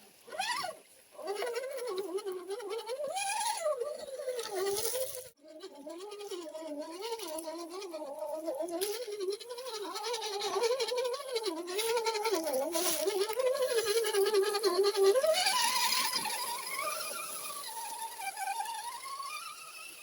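Small electric motor and gearbox of an RC rock crawler whining, the pitch wavering up and down as the throttle changes. It cuts out briefly about five seconds in, and rises higher for a while after the three-quarter mark.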